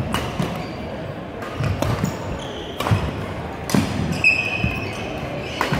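Badminton rally: racket strings hitting the shuttlecock with sharp cracks every second or so, mixed with footsteps and sneaker squeaks on the hardwood court. A clear squeak sounds about four seconds in.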